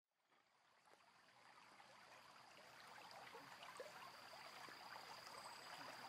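Near silence: a faint crackling hiss fades in from silence over the first couple of seconds, with a thin, steady high whine over it.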